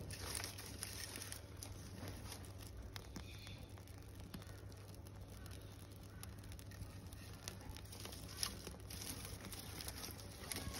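Small fire of dry twigs and bark catching, with light scattered crackles and the rustle and snap of sticks being handled and laid on it; one sharper snap about eight and a half seconds in.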